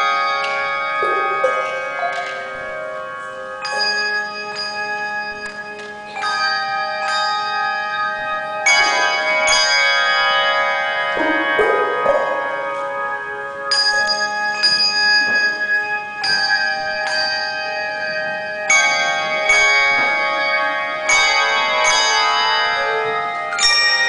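Handbell choir ringing chords: groups of bells struck together every two seconds or so, each chord left to ring on under the next.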